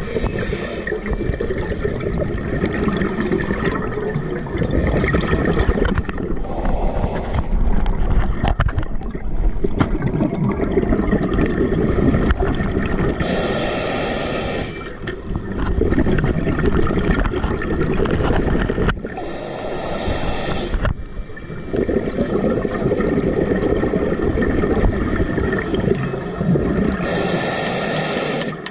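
Scuba diver breathing underwater through a regulator. Short hisses alternate with longer stretches of rumbling, gurgling exhaled bubbles, about one breath every six or seven seconds.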